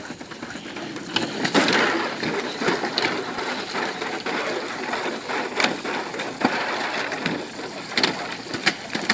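Irregular splashes and sloshing of water in a plastic kiddie pool as a boxer dog paws and stamps at it.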